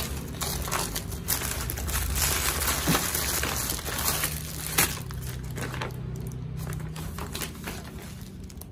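A paper courier envelope and a clear plastic bag crinkling and rustling as they are handled by hand and the plastic-wrapped package is pulled out. It is busiest in the first half and quieter after the middle, with a low steady hum underneath.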